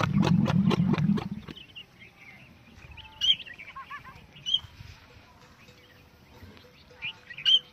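Rutting bull dromedary camel, frothing at the mouth, giving a deep pulsing, rumbling roar that stops about a second and a half in. A few short bird chirps follow.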